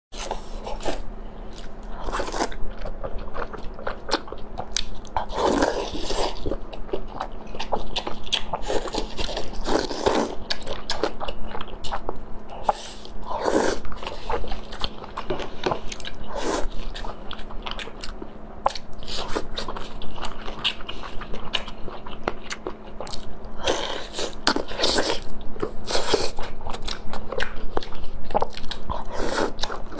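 Close-miked eating sounds: people biting and chewing food, with many short wet smacks and clicks, over a faint steady hum.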